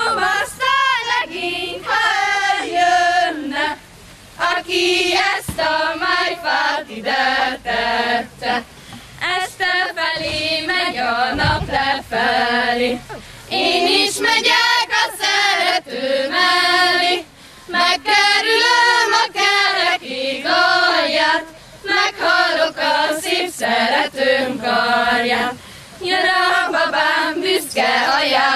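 A group of women's and girls' voices singing a Hungarian folk song together without instruments: a karikázó, a circle-dance song. It comes in phrases a few seconds long, with short breaks for breath between them.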